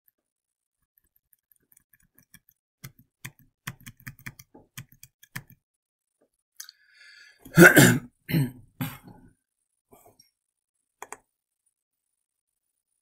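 A man coughing and clearing his throat in three short bursts about eight seconds in, among scattered mouse clicks and key taps.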